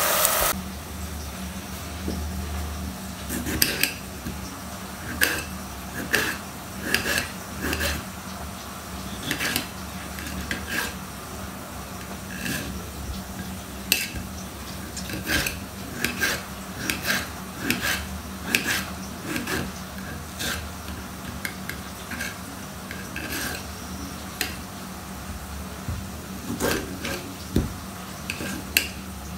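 Kitchen knife slicing tomatoes on a ceramic plate: irregular sharp clicks of the blade striking the plate, about one or two a second, over a steady low hum. A brief sizzle of frying at the very start cuts off.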